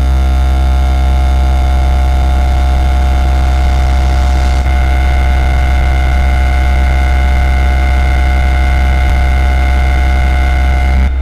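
Sudden, very loud, distorted droning noise: a deep hum with many steady buzzing tones above it, held unchanging, then cut off abruptly at the end. It is a blast of overdriven meme noise that interrupts the speaker.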